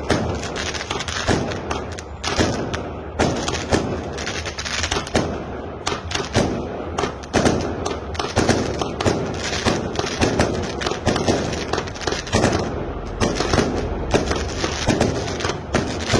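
Fireworks going off in quick succession: a continuous run of bangs and crackling from aerial shells bursting overhead.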